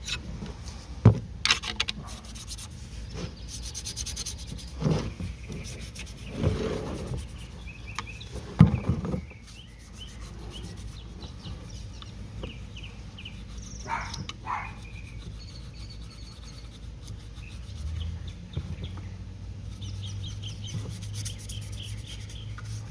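Scrubbing and rubbing on a motorcycle exhaust pipe to clean off dirt and oil. There are several louder strokes and sharp knocks in the first nine seconds, then it goes quieter.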